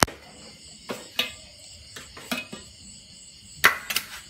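Stainless steel bowls and a metal pot clinking as food is spooned out and set down: several sharp knocks with a short ring. Insects chirr steadily behind.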